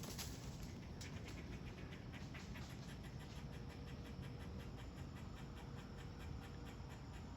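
Faint outdoor ambience with a quick, even ticking, about four or five ticks a second, and a faint steady hum from about three seconds in.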